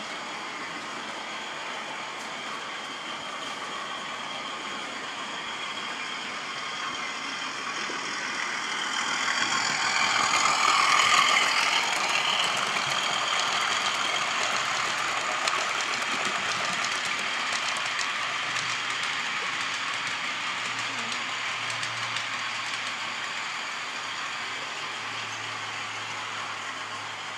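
Model trains running on a model railway layout: a steady mix of motor hum and wheels on track that swells to its loudest about eleven seconds in as a train passes close, then slowly fades.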